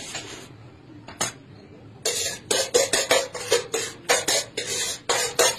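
Chopsticks clicking against a plate and noisy, hurried eating. After a single click, a quick run of short, sharp clatters starts about two seconds in.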